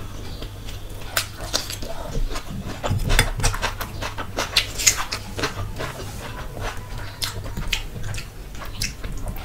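Close-miked eating by hand: wet chewing and mouth clicks on rice and curry, a dense run of irregular sharp clicks.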